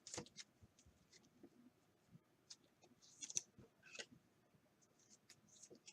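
Near silence with faint scattered clicks and a couple of soft rustles about three and four seconds in: trading cards being handled and slid apart.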